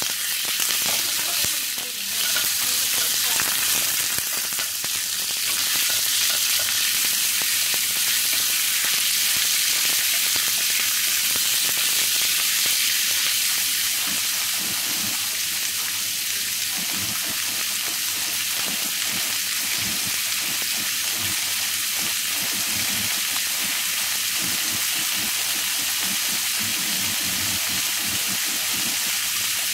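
Sliced meat frying in hot oil and garlic in a nonstick pan, a steady loud sizzle that eases slightly about halfway, with the light knocks of a wooden spatula stirring it.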